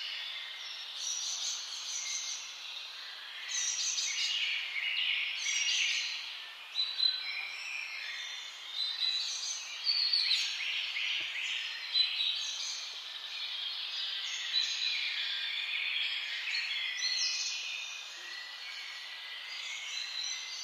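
Small birds chirping and singing, many short overlapping calls and quick trills, over a faint steady background hiss.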